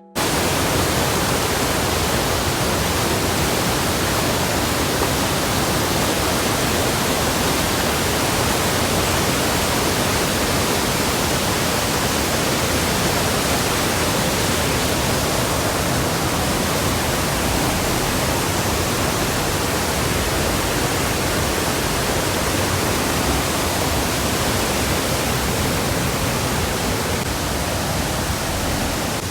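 Large waterfall rushing: a loud, even, unbroken wash of water noise.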